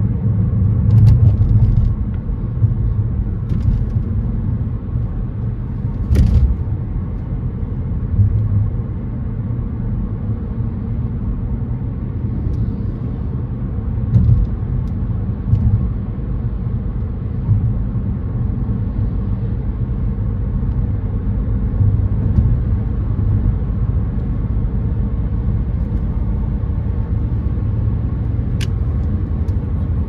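Steady low rumble of a car driving at road speed, heard from inside the cabin: tyre and engine noise, with a few brief clicks.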